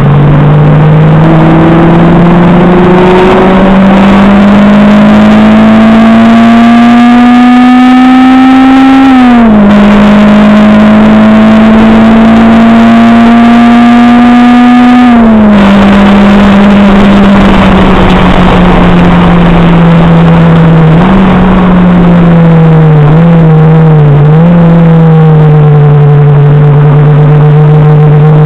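Acura RSX Type-S's K20A2 2.0-litre four-cylinder heard from inside the cabin, pulling hard on track: the revs climb steadily, drop sharply at two upshifts about nine and fifteen seconds in, then fall away slowly as the car slows, with a few brief wavers in pitch near the end before holding a steady lower note. Road and wind noise run underneath.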